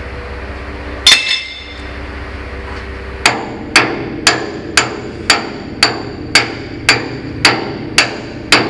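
Hammer striking steel at the roll-out cylinder's pin mount, with a metallic ring on each blow. One blow comes about a second in, then from about three seconds in a steady run of blows about two a second.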